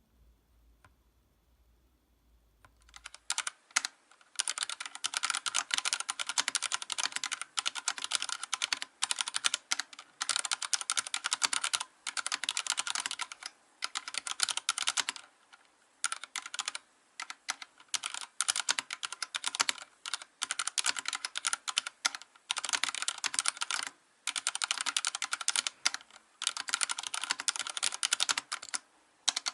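Fast typing on a Vortex Race3 mechanical keyboard with Cherry MX Silver linear switches: rapid key clacks in runs of a second or two with brief pauses. The typing starts about three seconds in, after near quiet.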